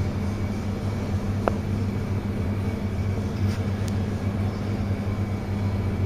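A steady low machine hum, with a faint click about a second and a half in.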